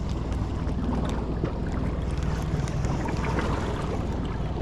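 Boat engine running steadily with a low drone, with wind across the microphone and a few faint clicks.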